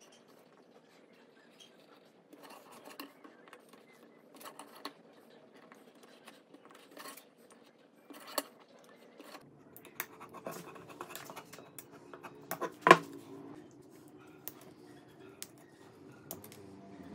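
Craft knife scoring and cutting a thin wooden strip along a steel ruler: scattered light scratches and clicks, with one sharp, louder click about three-quarters of the way through.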